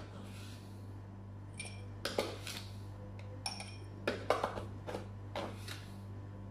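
Utensils and dishes clinking and knocking against ceramic bowls in a series of irregular short clinks, two of them ringing briefly.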